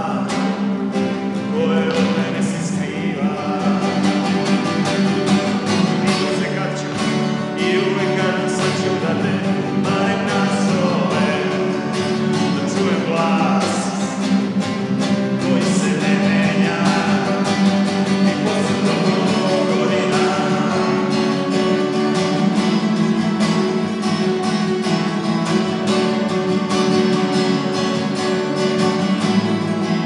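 Two steel-string acoustic guitars playing an instrumental duet, a picked melody over a steady low accompaniment.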